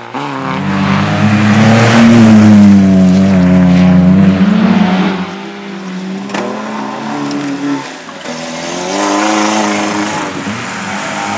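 Rally car engine revving hard under full throttle as it passes close by, the pitch rising and falling through gear changes, loudest about two to four seconds in and then fading. A second car's engine rises near the end.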